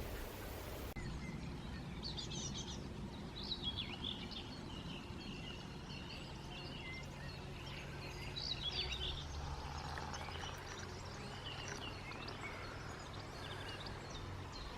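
Wild birds singing and chirping in scattered short phrases over a steady low outdoor rumble.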